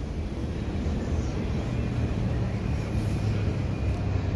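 Hyundai Rotem electric multiple-unit train running slowly alongside the platform, a steady low hum of motors and wheels that grows a little louder about a second in.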